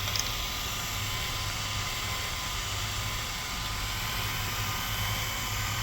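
Small electric motors of a model mine's two conveyor belts and its vibrating screen running steadily, a constant low hum under an even hiss, as the rig carries birdseed round.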